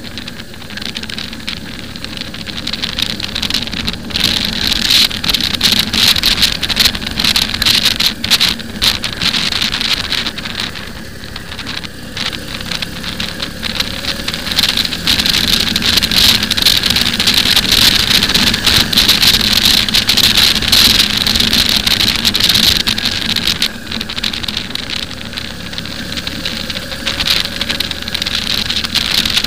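Wind rushing and buffeting over a microphone mounted on a moving motorcycle, over the steady low hum of the bike's engine. The rush eases twice, briefly, and builds again.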